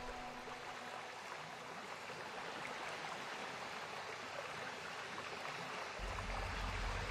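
Steady, even hiss of running water. The background music's held tone fades out within the first second, and a low rumble comes in about six seconds in.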